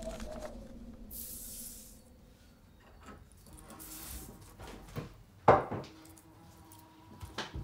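Paper being handled on a wooden table, with a brief hiss about a second in, one sharp knock about halfway through, and a few lighter taps near the end.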